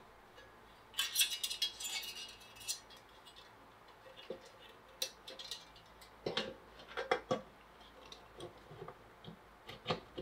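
Metal waste funnel of a Weston tomato strainer being fitted over the end of the screen: light metal clinks, scrapes and clicks as the parts are handled and the tabs pushed over, with a rattling scrape about a second in and a few sharper clicks later.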